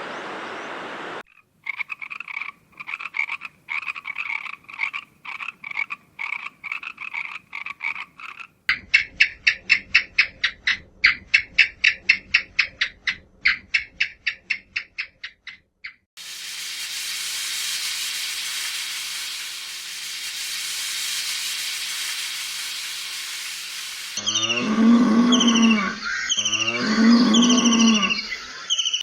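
A run of animal calls: trains of short repeated calls, about two a second and then faster, then a stretch of steady hiss, and near the end two long, loud calls that could be a cow mooing.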